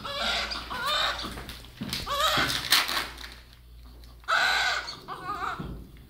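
Newborn baby crying, a string of short wails with a lull of about a second in the middle.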